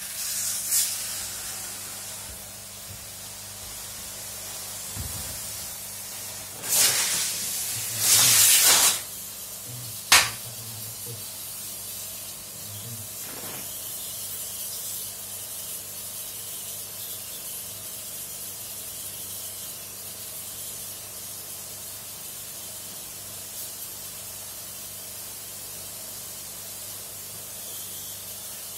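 Water spraying with a steady hiss while a dirty air-conditioner part is washed, with a few louder spurts about seven to ten seconds in.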